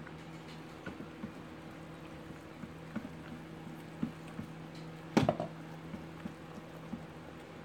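Spoon stirring thick, mashed-potato-like hot-process soap in a slow-cooker crock: irregular squelches and light knocks against the bowl, with a louder knock about five seconds in, over a steady low hum.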